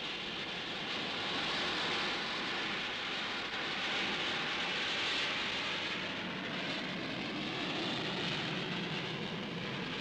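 Jet engines of a formation of six fighter jets flying past, a steady rushing noise with no break.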